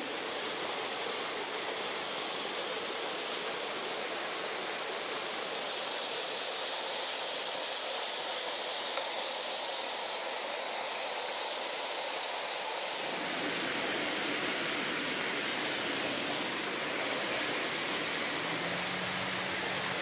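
Steady rushing of a running stream, fuller and lower after about thirteen seconds.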